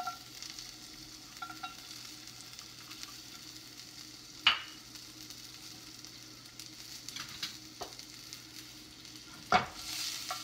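Sliced garlic sizzling in hot oil in a frying pan. The sizzle grows louder near the end as the garlic is stirred with a wooden spoon. Two sharp knocks come, one about halfway through and one near the end.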